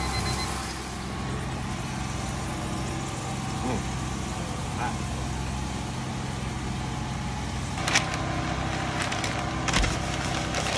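A steady machine hum with a low drone runs throughout. From about eight seconds in, stiff butcher paper crinkles and rustles as meat is wrapped in it.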